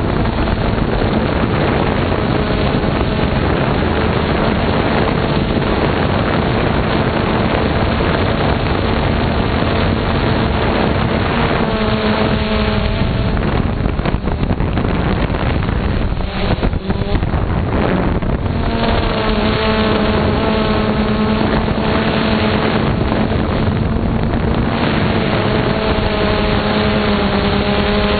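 Onboard audio of a radio-controlled aircraft: its motor and propeller giving a steady droning hum over the rush of wind past the microphone. The hum drops away from about 13 to 18 seconds in, leaving mostly wind, then comes back at a slightly higher pitch as the throttle opens again.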